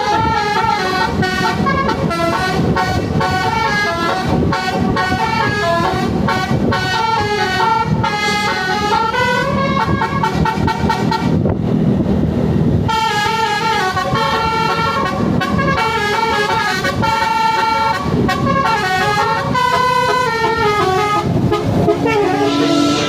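Bus telolet horn playing long runs of quick, stepping multi-tone melodies over an engine's low rumble; the horn breaks off for a second or two about halfway, then starts up again.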